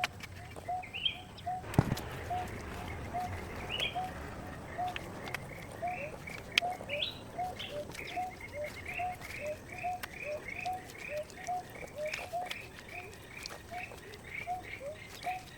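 Birds chirping, one repeating a short low note about twice a second and another a higher note that comes faster in the second half. Scattered light clicks and a dull knock about two seconds in.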